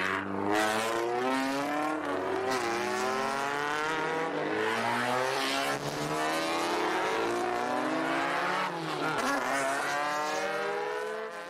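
A race car engine accelerating hard through the gears. Its pitch climbs and drops back at each shift, about four times, and the sound fades out near the end.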